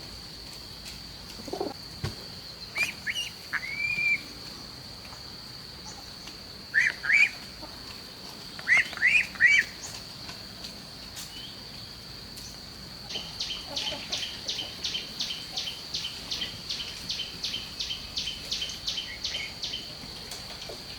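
Birds chirping in short groups of quick rising calls over a steady high insect drone. In the second half a high call repeats rapidly, about two or three times a second, for several seconds.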